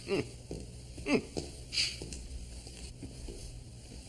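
A voice making two short, quiet sounds about a second apart, over a low steady hum.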